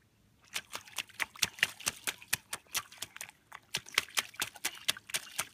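Small rubber boots stomping through a wet mud puddle: a quick, irregular run of wet splats, several a second, starting about half a second in.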